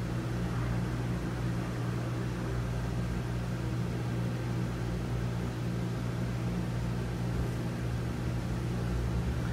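Steady low hum with a faint even hiss underneath; room background noise with no distinct event.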